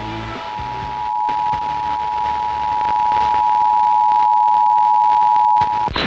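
Emergency Alert System attention signal: the steady two-tone alert (853 and 960 Hz) held unbroken, cutting off suddenly just before the end, announcing a severe thunderstorm warning. Music plays faintly beneath it.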